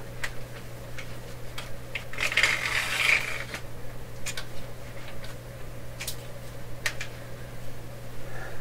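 Scattered light clicks and clinks of small metal parts and tools being handled on a workbench, with a brief rustling scrape about two seconds in, over a steady low hum.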